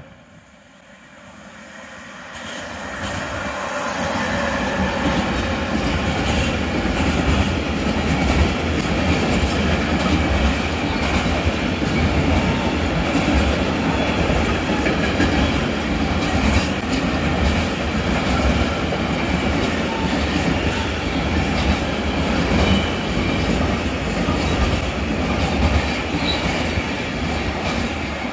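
A freight train of tank wagons passes through at speed. The sound builds over the first few seconds as it approaches, then holds as a steady loud rumble with wheels clattering over the rails.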